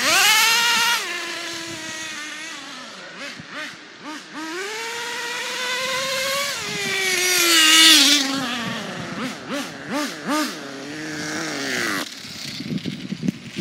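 Redcat Tornado S30 nitro RC buggy's small glow engine revving up and down as the car drives off and comes back, with a few quick throttle blips, then cutting out abruptly about twelve seconds in: it has run out of fuel.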